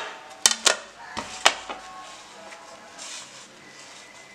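A handful of sharp clinks and knocks as a pan and a wooden spatula strike a ceramic plate while a potato omelette is slid onto it, all within the first two seconds.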